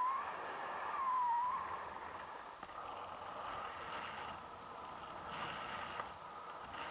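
Wind rushing over the camera's microphone in paraglider flight, a steady rush of air, with a short wavering whistle about a second in.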